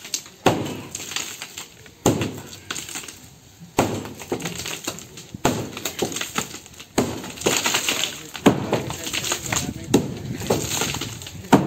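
A concrete roof slab being broken up by hand with a heavy striking tool. Sharp blows land about every one and a half seconds, with broken pieces clinking and rattling between them.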